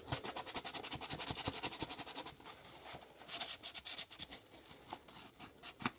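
600-grit wet/dry sandpaper rubbed quickly back and forth on a square brass bar, a rapid run of scratchy strokes for about two seconds, then a shorter run about three and a half seconds in. The metal is being sanded to a shine to clean the mating surface for soldering.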